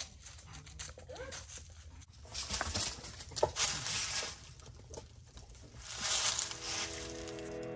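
Rustling and crackling in dry leaves and pine needles, with louder bursts of scuffing noise about two to four seconds in and again near the end. Music fades in near the end.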